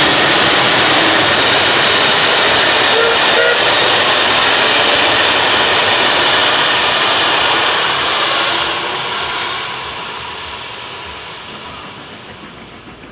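Steam-hauled train running past: a loud, steady rushing noise that fades away over the last few seconds.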